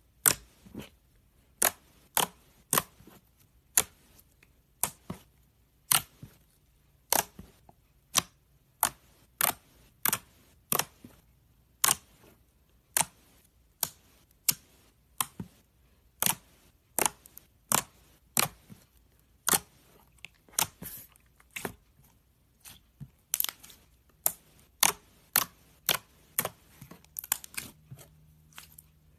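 Slime being pressed and poked, giving a run of sharp pops and clicks about one to two a second, with quiet between them.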